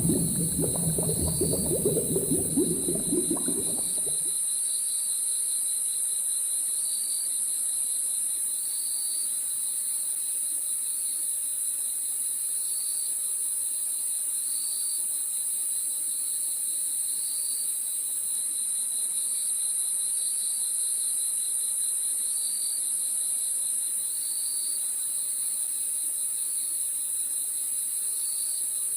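Crickets chirping in a regular rhythm, about one chirp a second, over a constant high hiss. A low, rough rumbling sound cuts off about four seconds in.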